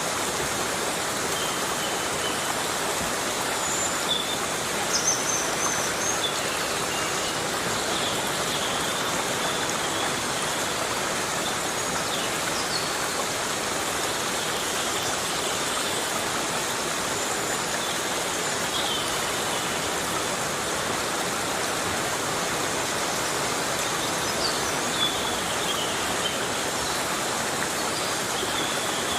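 Heavy rain falling steadily in a tropical forest, an even hiss with no letup. A few faint, short high chirps come and go over it.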